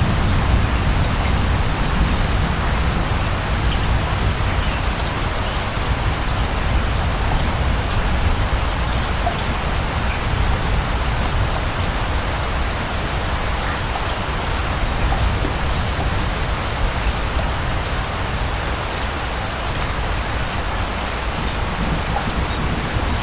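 Steady rain falling, a constant hiss with scattered individual drop ticks over a low rumble underneath.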